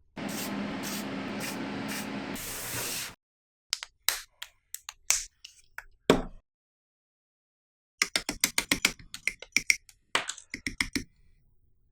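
A steady spray hiss with a low hum for about three seconds, then scattered sharp clicks and a fast run of small clicks, like plastic model-kit parts being handled and snapped.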